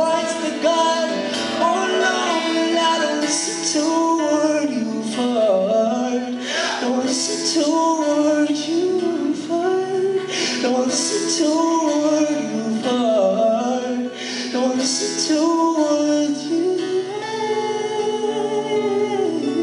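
A man sings over two acoustic guitars played live, in long notes that slide and bend in pitch.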